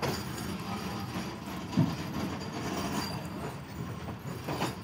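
Steady rumble of a train with a single sharp knock about two seconds in.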